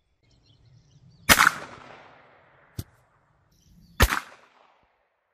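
Two sharp bangs about two and a half seconds apart, each trailing off quickly, with a fainter click between them: a 9mm Luger FMJ cartridge going off outside a gun barrel, with nothing to contain the blast.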